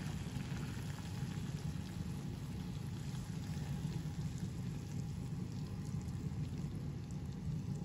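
Thick sauce with vegetables being poured from a pan onto a fried fish on a metal platter: a wet, patting pour with small scattered splats, over a steady low rushing noise.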